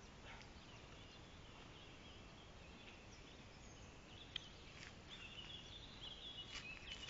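Near silence: faint outdoor background with a few faint bird chirps in the second half.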